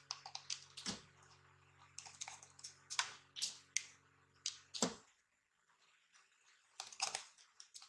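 Scattered light clicks and taps of a plastic bottle and a hot glue gun being handled while lace is glued on. A faint steady hum runs underneath and stops abruptly about five seconds in.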